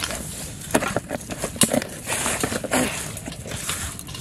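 A hand scrunching and mixing crumbly dry fish bait in a steel bowl, making irregular crunchy rustling with sharp clicks.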